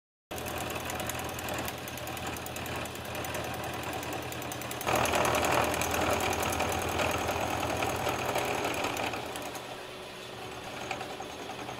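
Machine-shop metalworking: a lathe running with a crankshaft turning in it. From about five seconds in, a louder milling machine cuts the crankshaft with a fast, even rhythm as the table is hand-fed.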